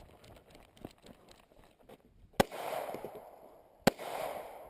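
Two gunshots about a second and a half apart, each followed by a short echo.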